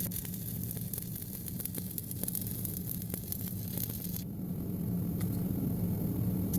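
Stick (SMAW) welding arc with 7018 electrode, a steady crackling hiss over a low steady hum; the upper hiss thins out about four seconds in.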